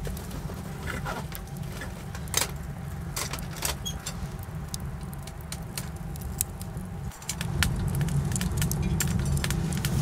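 Firewood burning in a tent wood stove, crackling with scattered sharp pops and ticks that come thicker near the end, over a steady low rumble that grows louder about seven and a half seconds in.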